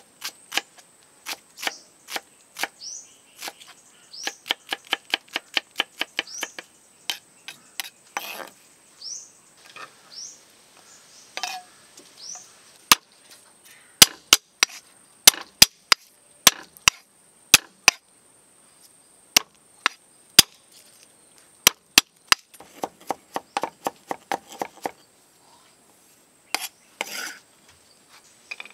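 A wide-bladed knife chopping on a thick wooden log chopping block. It starts with quick, irregular strokes dicing red onion, then comes a string of sharper, louder single strikes cutting garlic, with a fast run of mincing strokes near the end.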